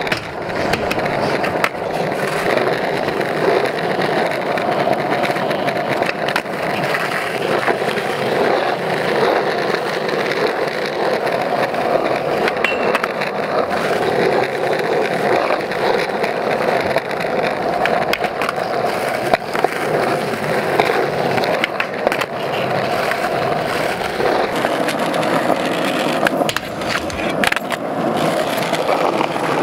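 Skateboard wheels rolling continuously over rough asphalt, a steady gritty rumble, with a few sharp clacks of boards scattered through.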